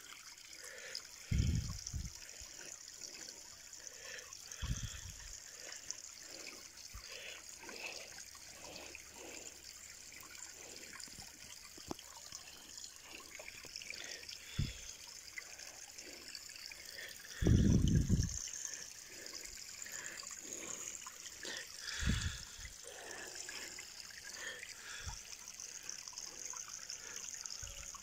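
Water trickling steadily over stones into a small garden pond. A few dull low thumps break in, the longest and loudest about two-thirds of the way through.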